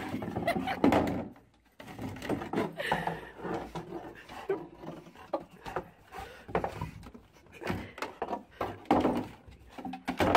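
Plastic snow shovel knocking and scraping on wooden deck boards as a dog carries and drags it in its mouth, in a string of irregular knocks.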